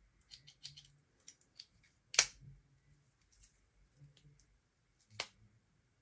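Swiss Army knife being handled, its tools worked open and shut: a run of small clicks, then two sharp snaps, the louder about two seconds in and another near the end.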